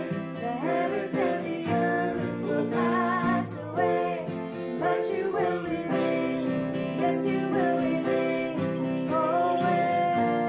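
A man and a woman singing a worship song together, accompanied by a strummed acoustic guitar and a Roland digital keyboard.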